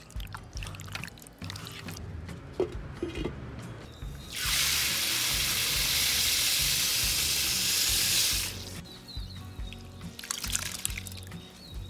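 Dry white rice poured in a steady stream into a clay basin of water, a loud even hiss lasting about four seconds. Near the end, hands rub and swish the rice in the water, with small splashes.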